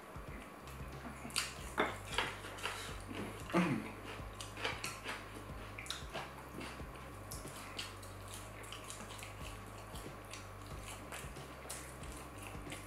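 Eating at the table: cutlery clinks and scrapes on a plate, with scattered sharp mouth clicks while chicken wings are chewed. A faint low hum runs underneath.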